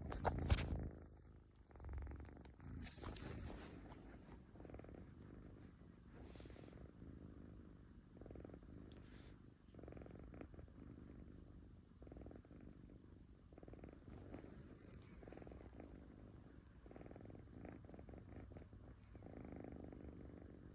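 Kitten purring, the purr swelling and fading with each breath about every two seconds, after a short loud noise at the very start.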